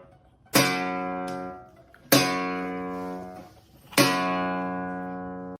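Guitar music: three chords strummed about every one and a half to two seconds, each left to ring and fade.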